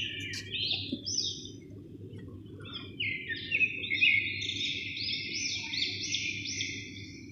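Small birds chirping in quick runs of short, high, arching notes, busiest in the second half, over a low steady hum.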